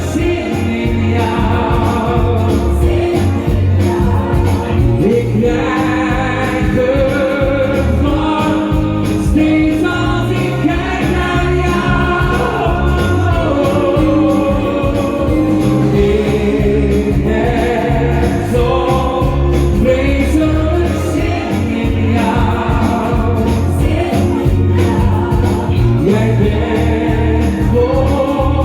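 Dutch-language pop song playing loud, with wavering sung or melodic lines over a steady bass beat.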